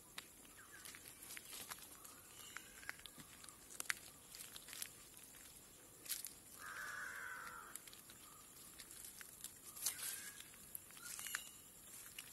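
Slow footsteps on a gravel and leaf-litter path, with faint birdsong. About six and a half seconds in, a crow gives one harsh, drawn-out caw lasting about a second.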